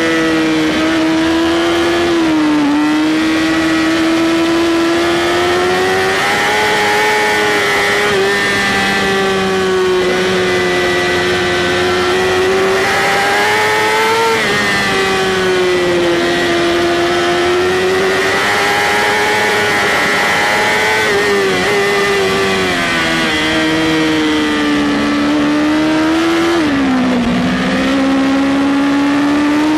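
BMW S1000RR inline-four engine at high revs under racing throttle, its pitch rising and falling through the corners, with sudden drops in pitch about two and a half seconds in and near the end.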